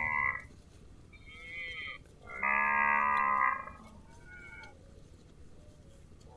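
Cattle mooing: a call trails off at the start, a softer moo follows, then a loud moo about a second long, and a faint short one after it.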